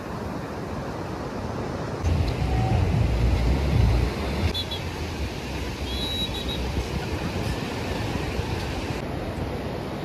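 Sea surf washing steadily on a sandy beach, with a low rumble of wind on the microphone for a couple of seconds about two seconds in.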